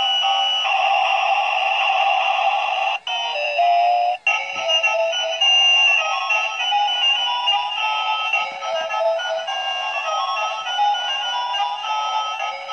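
Tinny electronic tune from the train bubble gun's small built-in speaker as it blows bubbles, cutting out for an instant twice, about three and four seconds in.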